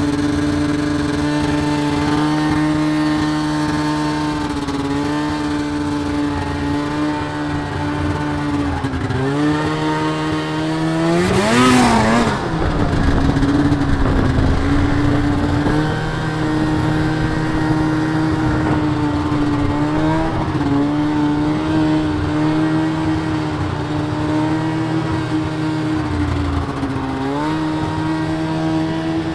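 Snowmobile engine running loud and steady, revving up to a higher pitch about ten seconds in and dropping back, with a couple of smaller rises in pitch later.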